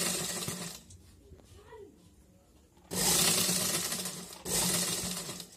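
Sewing machine stitching a seam in short runs. It runs until just under a second in, starts again about three seconds in, pauses briefly, and runs once more until near the end, with a steady low hum under each run.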